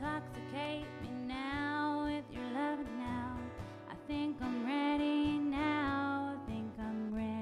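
Acoustic guitar strummed in a steady rhythm, with a woman's voice singing a held, gliding melody over it.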